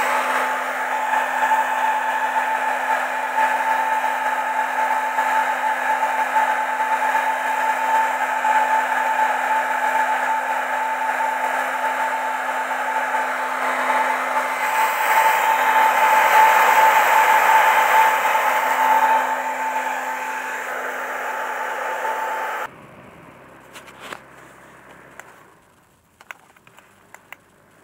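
Small electric fan-blower motor running steadily: an even rush of air over a steady hum. It cuts off abruptly several seconds before the end, leaving a quiet background with a few faint clicks.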